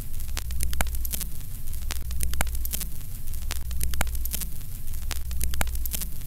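Old-film countdown leader sound effect: the crackle and pops of a worn film soundtrack over a steady hum, with a sweeping sound about once a second as the count goes down.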